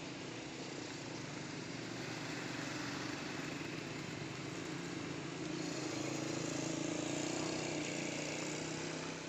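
Small motorcycle engine running steadily under way, with road and wind noise; it grows a little louder about halfway through.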